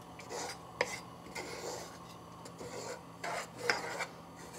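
Spatula stirring and scraping dry whole wheat flour in a saucepan: a soft, irregular rasping, with a few louder strokes about a second in and again near the end. The flour is being dry-toasted without oil over low heat.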